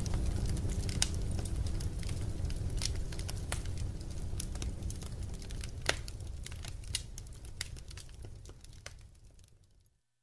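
Bonfire of burning badnjak wood crackling and popping in sharp, irregular snaps over a low rumble, fading out to silence near the end.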